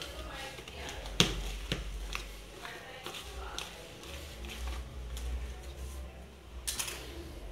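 Hand working soft, sticky bread dough in a plastic bowl, with two sharp knocks half a second apart a little after a second in, and faint voices.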